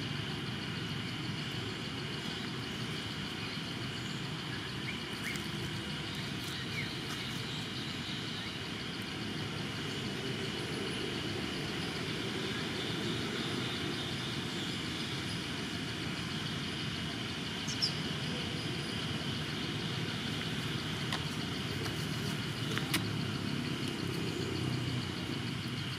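Steady outdoor background: a low, even rumble with a constant high-pitched drone above it, and a few faint clicks and a brief chirp partway through.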